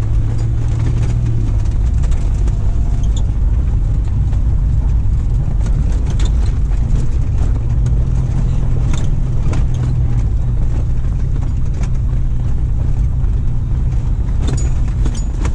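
A car's engine and tyres drone steadily, heard from inside the cabin as it drives along a gravel track, with a few scattered knocks and rattles.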